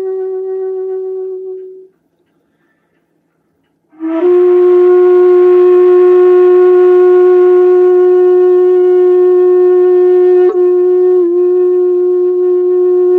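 Shakuhachi, the end-blown bamboo flute, playing a slow solo honkyoku: a held note fades out about two seconds in, then after a silence a long, loud note begins with a breathy attack about four seconds in and is held to the end, with a sharp click and a brief dip in pitch near the end.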